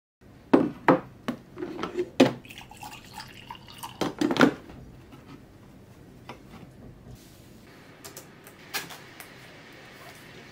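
A drip coffee maker brewing, its water dripping and trickling into the glass carafe. Several sharp clinks and knocks in the first half, as the coffee things beside it are handled.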